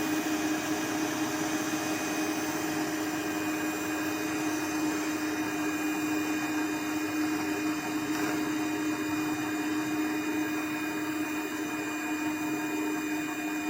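Electric hand mixer running steadily at one speed, whipping instant coffee, sugar and hot water into a thick foam.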